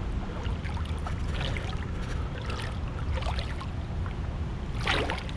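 Shallow river water rippling around a salmon held in the current by hand, with a few short splashes, the loudest about five seconds in, over a steady low rumble.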